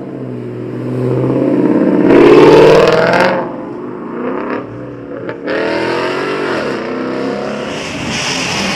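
A Ford Mustang's engine revving and accelerating past, loudest about two to three seconds in. Another car's engine revs from about five and a half seconds on.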